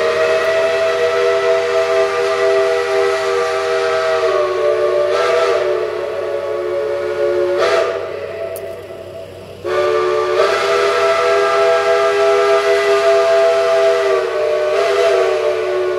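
Steam locomotive's chime whistle blowing a loud chord of several notes in two long blasts, with a pause of under two seconds between them.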